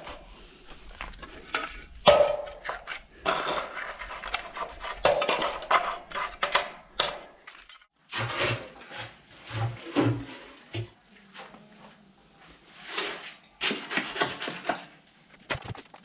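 A metal trowel scraping and clinking on wet concrete in irregular strokes.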